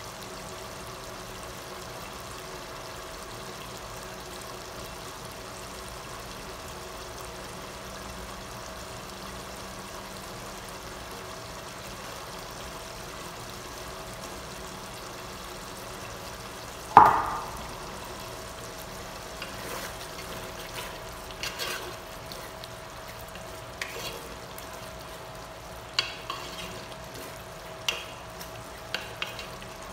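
Bistek simmering in a large aluminium pot, a steady low sizzle with a faint steady tone under it. About halfway through comes one loud knock with a short ring, and in the last ten seconds a wooden spoon stirs the beef, scraping and knocking irregularly against the pot.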